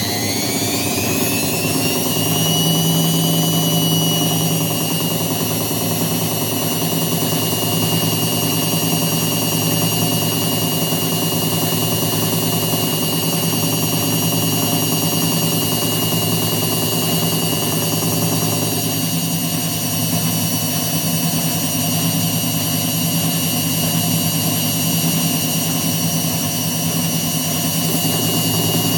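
Indesit WITL106 top-loading washing machine in its spin cycle: the motor whine rises as the drum comes up to speed, levelling off about two seconds in, then runs steady. The machine has a drum knock and vibration during spin, whose cause the owner is searching for.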